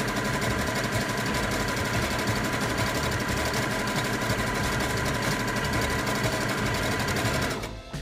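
Brother CS6000i computerized sewing machine running steadily, stitching a seam through the fabric; it stops shortly before the end.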